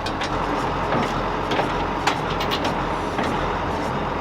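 Steady rumble of motor-vehicle engines running, with a few sharp clicks through it.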